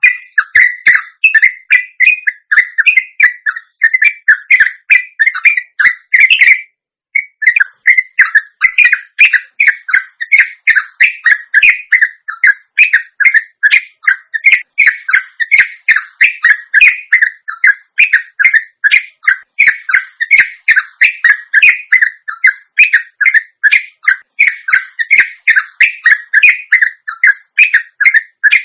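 Yellow-vented bulbul (trucuk) giving its long rolling 'ropelan' song: a fast, continuous run of chattering notes, about three to four a second, with a brief break about seven seconds in.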